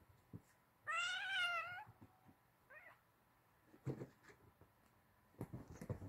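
Oriental kitten giving one loud, wavering meow about a second in, then a short faint squeak, while play-wrestling with another kitten. Soft knocks and rustles of the bedding come in the second half.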